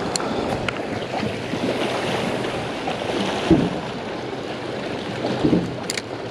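Wind buffeting the microphone over the wash of water at the shoreline, a steady rough noise. Two dull knocks come about midway and a little later, the first the loudest, and a sharp click comes near the end.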